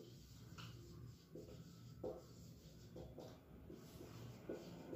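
Faint strokes and squeaks of a marker pen writing on a whiteboard, a few short separate strokes.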